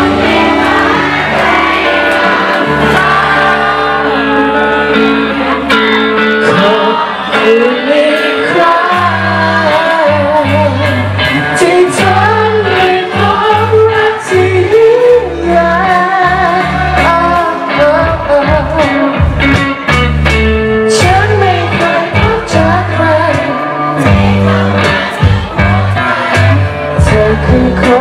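Live band playing a song with a woman singing lead over electric guitars and drums, loud and continuous.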